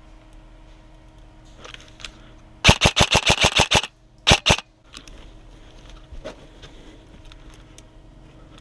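Airsoft gun firing in rapid automatic bursts: a run of about ten quick shots, then a short burst of three or four about half a second later.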